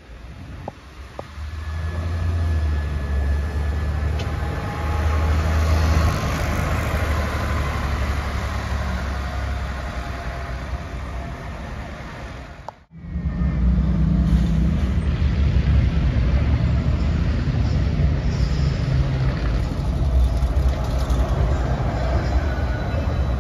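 City transit buses running at a stop: a steady low engine hum over traffic noise. About thirteen seconds in, the sound cuts abruptly and resumes louder, with a bus close by.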